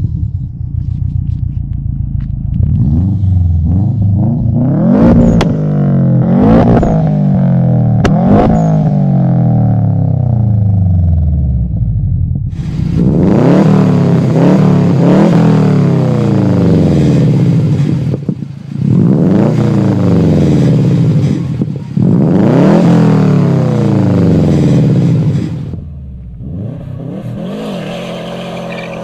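Subaru Impreza WRX turbocharged flat-four engines being revved repeatedly, the exhaust note rising and falling with each blip, with a few sharp cracks between revs in the first half. About halfway it switches to a louder, brighter note through an Invidia N1 race exhaust, revved three times. Near the end a quieter engine note is heard as a WRX with a MADAC exhaust drives away.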